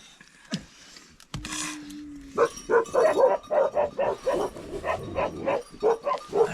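A dog barking in a fast run of short barks, about four a second, starting a couple of seconds in.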